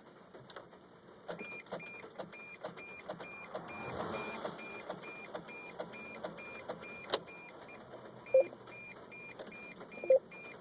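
Mercedes Sprinter van's dashboard warning chime beeping evenly, about twice a second with a click on each beep, in a van that will not start. It starts about a second in, with a sharp click partway through and two short knocks near the end.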